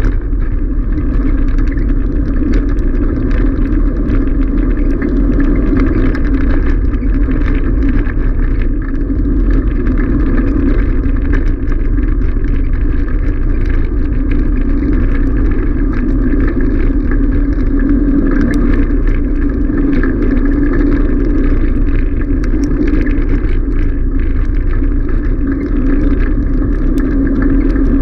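Steady rumble of wheels rolling fast over a gravel road, with faint scattered ticks of grit.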